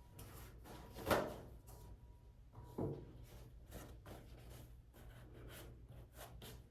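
Faint clicks, taps and scrapes of small objects being handled, with two louder knocks about a second and about three seconds in.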